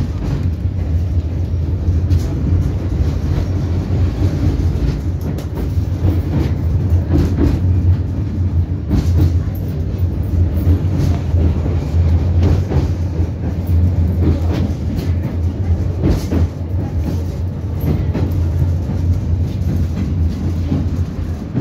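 A 71-623-02 low-floor tram running along its track, heard from inside the passenger cabin: a steady, loud low rumble from the running gear and motors. Several short sharp knocks come through in the middle of the run.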